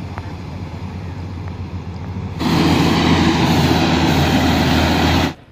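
Diesel engine of a Caterpillar motor grader running steadily. It becomes much louder about two and a half seconds in and cuts off abruptly near the end.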